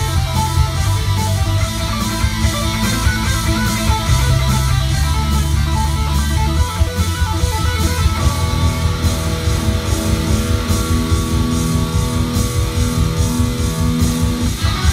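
Electric guitar playing an instrumental rock piece over a steady beat, with heavy low notes. About halfway through, the riff gives way to longer held notes higher up.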